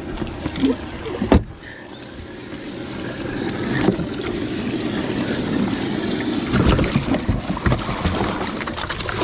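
Water churning and splashing in a bass boat's livewell as a bass is put in and moved about by hand, with a sharp knock about a second in.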